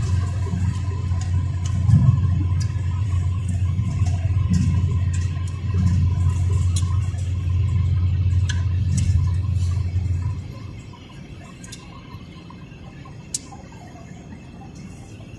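Steady low road and engine rumble inside a moving car's cabin at highway speed. About ten seconds in the rumble drops away suddenly to a much quieter hiss, with faint scattered ticks throughout.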